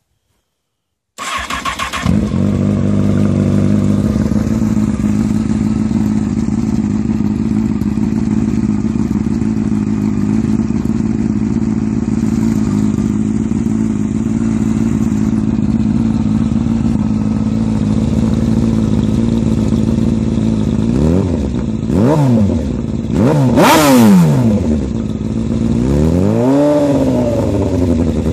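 A 2003 Honda CBR954RR's inline-four engine, heard through a custom shorty exhaust, starts about a second in and idles steadily. Near the end it is blipped several times in quick succession, then revved up and back down more slowly.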